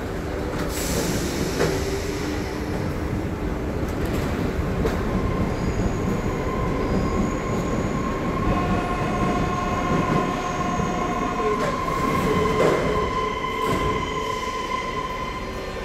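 Train running on rails: a steady low rumble, with several steady whining tones joining in from about five seconds in.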